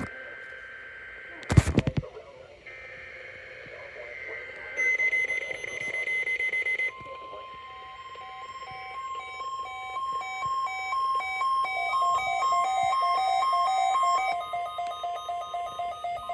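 NOAA Weather Radio weekly test alert received over a radio: a burst of static, then a short buzzy data burst about two seconds long, then the steady 1050 Hz warning alarm tone with rapid beeping laid over it, growing louder.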